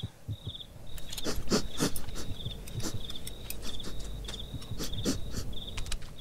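A cricket chirping steadily, about two short high chirps a second, over irregular sharp clicks and knocks and a low rumble.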